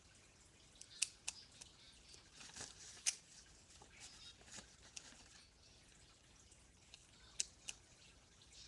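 Scissors and paper being handled: a few sharp clicks, two of them a third of a second apart about a second in, another near three seconds and a last pair late on, over faint rustling.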